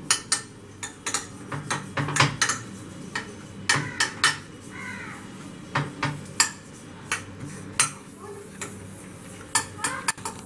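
Metal spoon clicking and scraping in a glass baking dish as its greased back is smoothed over set fudge: irregular sharp clinks throughout.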